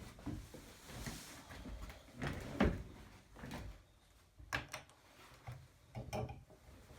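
Irregular light knocks and scrapes of objects being handled, with the loudest knock a little over halfway through.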